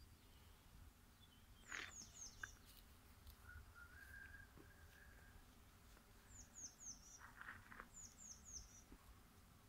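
Faint birdsong: a small bird repeating short runs of three or four quick, high, falling notes every few seconds, with a thin held whistle from another bird in between.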